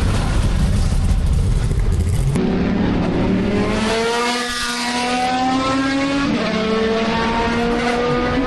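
Racing car engine accelerating hard, its pitch climbing steadily, dropping once at an upshift and climbing again. A rougher, louder burst of engine noise comes first, cut off a couple of seconds in.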